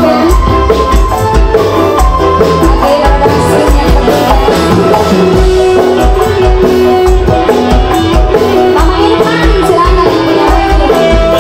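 Live dangdut band playing loudly over a steady bass beat.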